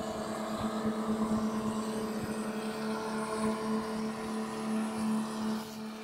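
River tugboat's diesel engine running with a steady drone as it tows barges past.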